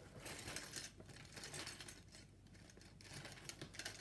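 Faint handling of small cube accessories, such as lube bottles and cube stands, as they are picked up and piled on a surface: light scattered clicks, taps and rustles.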